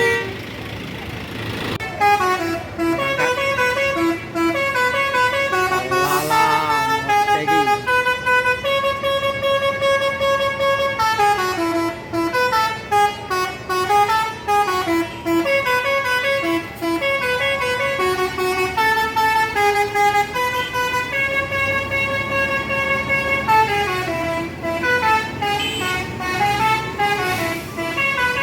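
Bus telolet horn playing a fast multi-note tune, note after note in quick steps, starting about two seconds in, with a brief wavering siren-like slide partway through.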